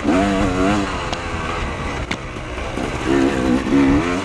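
Dirt bike engine labouring up a steep, rough hill climb, its pitch rising and falling as the throttle is worked, strongest for about the first second and again from about three seconds in. A sharp knock about two seconds in.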